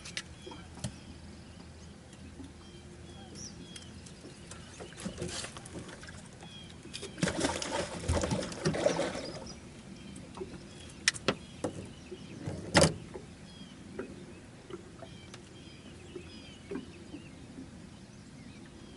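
Birds chirping faintly in the background. About seven seconds in comes a roughly two-second burst of rustling, splashy handling noise, followed by a few sharp knocks around eleven to thirteen seconds in.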